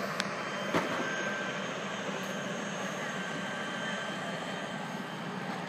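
Turbine helicopter running nearby: a steady whine of several high tones over a constant rushing hum. A sharp click just under a second in.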